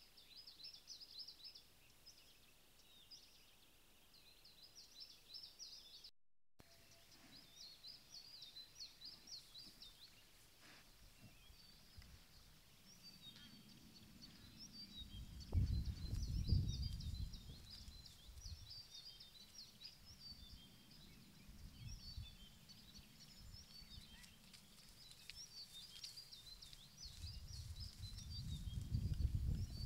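Small songbirds chirping and singing in quick phrases throughout, with a brief cut-out about six seconds in. A low rumble swells twice, about halfway through and again near the end, louder than the birdsong.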